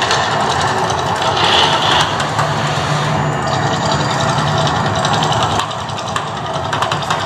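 Mirage volcano attraction erupting: a loud, steady rushing rumble with a low hum beneath it.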